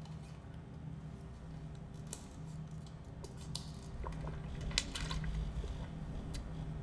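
Foley of a thin plastic water bottle being handled and drunk from: small crinkles and clicks of the plastic, loudest about five seconds in. A steady low electrical hum runs under it.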